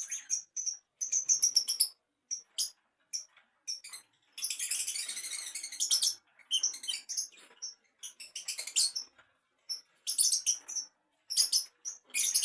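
Small birds chirping: rapid clusters of short, high-pitched chirps with brief pauses between them.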